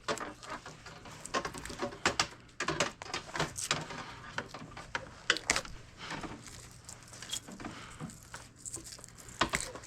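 Irregular clicks, taps and scrapes of scrap insulated wire being handled and worked through a wire-stripping tool, over a faint steady low hum.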